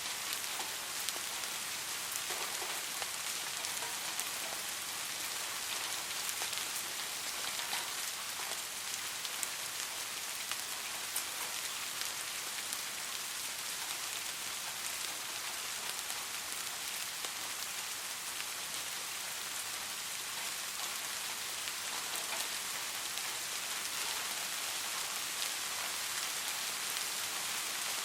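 Steady soft rain falling on a surface, an even hiss dotted with many small drop ticks.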